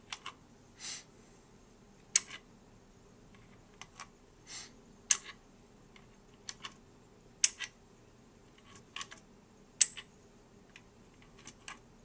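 Small game pieces clicking as planks are lifted with the hiker figure and set down between the stumps of a plastic River Crossing puzzle board. About a dozen sharp, irregular clicks, with two softer scrapes of a piece sliding, one about a second in and one near the middle.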